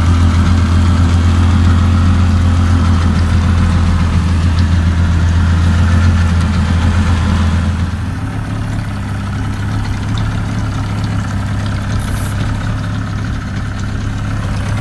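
A small boat's outboard motor idling with a steady low hum. About eight seconds in it gets a little quieter and its pitch rises slightly.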